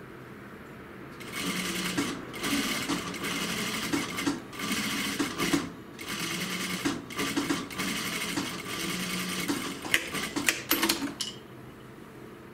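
Juki industrial single-needle lockstitch sewing machine stitching in stop-start runs with brief pauses, then a few quick short spurts of stitches before it stops.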